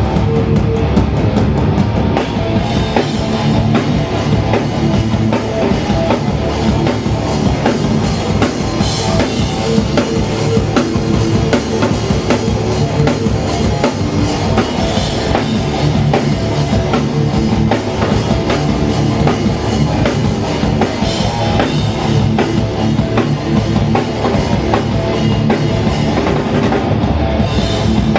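Hardcore punk band playing live: distorted electric guitars and bass over fast, steady drum kit beats, with no vocals picked up.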